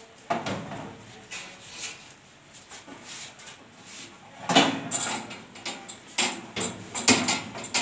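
Irregular knocks and clatter as a coil of plastic strapping is fitted onto a strapping machine's reel holder and its strap fed in, with the loudest bumps bunched about halfway through and near the end.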